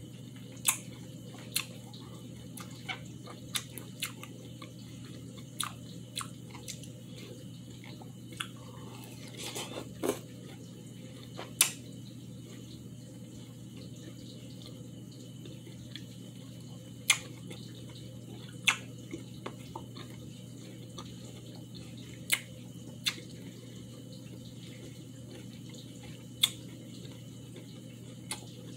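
Wet mouth smacks and slurps of a person eating juicy ripe cantaloupe slices, sharp and scattered, a second or several apart, over a steady low hum.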